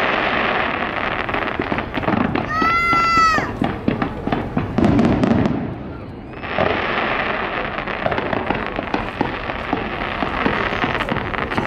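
Fireworks going off in a dense run of crackles and pops. A short high whistle comes about three seconds in, the crackling eases briefly near six seconds, then picks up again.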